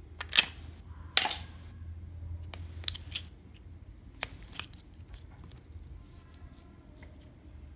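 Plastic casing of a gel-filled, flower-shaped stress toy being prised apart by hand: two loud plastic snaps and crackles in the first second and a half, another about four seconds in, with lighter clicks between.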